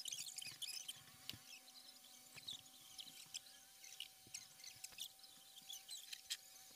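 Small scissors snipping and picking at a textured special-effects makeup layer on the skin: faint, irregular crackling clicks over a faint steady hum.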